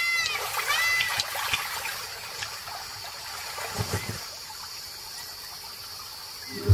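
Water trickling and splashing at a waterhole's edge, with two short high calls, each rising then falling, in the first second and a low thud about four seconds in.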